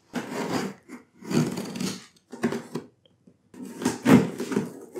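Packing tape on a cardboard box being slit with a pocket knife and ripped off in four separate tearing pulls.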